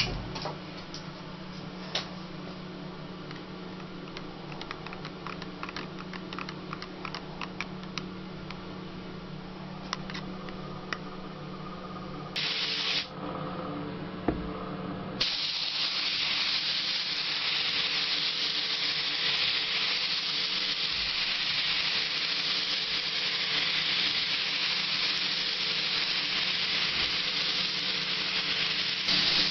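Compressed-air paint spray gun spraying lime green candy coat, a steady loud hiss that starts about halfway through after a brief burst of air. Before it, a low hum with scattered faint ticks.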